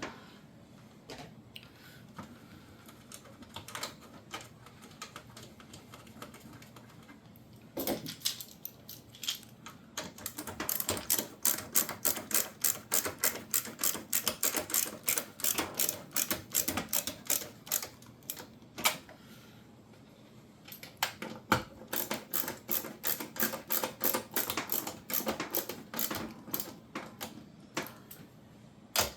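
Rapid clicking and tapping from hand-tool work on a dishwasher door during reassembly. Scattered single clicks give way to two long runs of quick clicks, several a second, about ten and about twenty seconds in.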